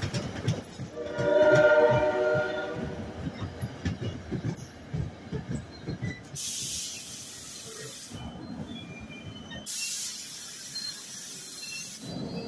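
NJ Transit passenger train pulling into a station: the PL42AC diesel locomotive's horn sounds one chord for about two seconds, about a second in. The wheels then knock over the rail joints as the Comet cars roll by slowing, and air hisses twice as the train brakes to a stop.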